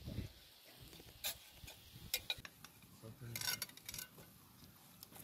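Metal ladle clinking and scraping against a metal cooking pot as food is scooped out: a handful of sharp clinks scattered over a few seconds.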